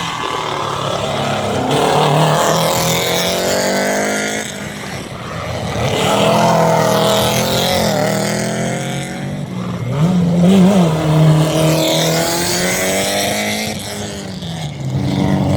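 Rallycross cars racing past in turn, their engines revving up and dropping back as they pass, with the sound swelling three times.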